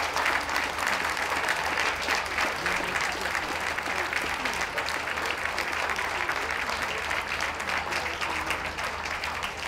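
Audience clapping: steady applause that eases off slightly near the end.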